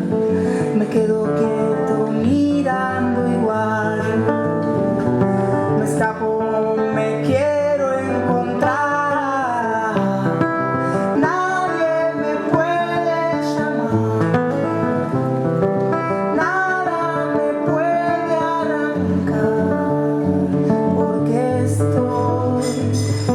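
Folk-rock music led by acoustic guitar, with a melody line above it that slides in pitch.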